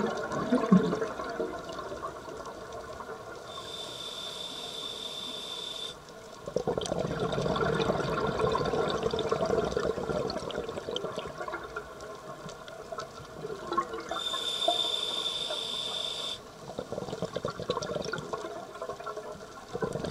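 Scuba diver breathing through a regulator underwater: two slow inhalations with a steady hiss and a thin high whistle, each followed by a longer stretch of bubbling exhaled air.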